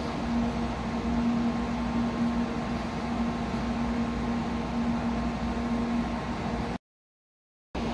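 Steady hum of a stopped N700-series Shinkansen train's onboard equipment and cooling blowers: one low steady tone over an even whooshing noise. It cuts off abruptly about seven seconds in.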